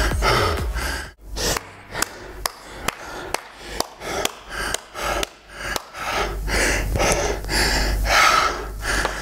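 A man's heavy, gasping breathing, winded from hard interval training. Through the middle there is a run of sharp clicks, about two a second.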